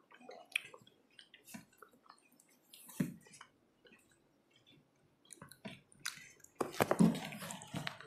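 A child chewing and eating rice by hand close to a clip-on microphone: scattered soft mouth clicks and smacks. Near the end there is a louder, busier stretch of sound lasting about a second and a half.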